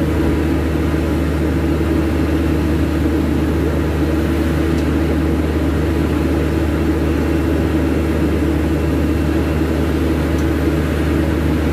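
Steady, loud, low-pitched machinery hum that does not change: the drone of running equipment on the airport ramp.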